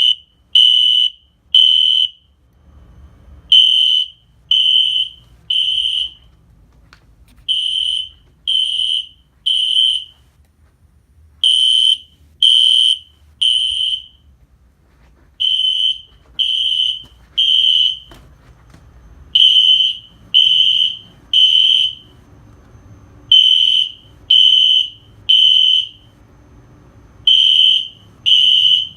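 Synchronized System Sensor SpectrAlert Classic fire alarm horns sounding the code 3 (temporal-three) evacuation pattern: three loud, high-pitched beeps, then a pause, repeating about every four seconds.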